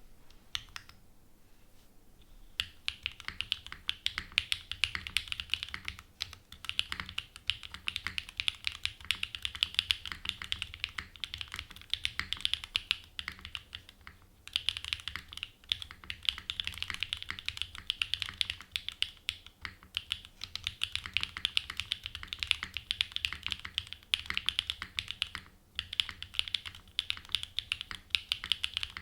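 Fast continuous typing on a Geonworks F1-8X custom mechanical keyboard with an aluminium plate, Pure Berry frankenswitches with Cherry top housings and GMK keycaps: a dense stream of key clacks that starts a couple of seconds in, with a few short pauses.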